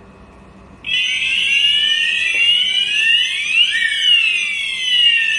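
Several electronic sounders of an FP300 series addressable fire alarm system start together about a second in, as the whole system is set off in a test. They make a loud chorus of high-pitched tones that sweep up and down out of step with one another.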